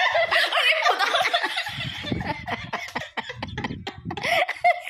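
A person laughing and giggling in wavering bursts, loudest early and again near the end, over rustling and bumping as the phone is moved against bedding.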